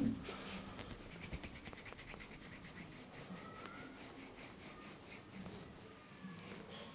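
Massaging hands rubbing briskly over the client's back in a fast, even rhythm of short strokes, with a dull thump right at the start.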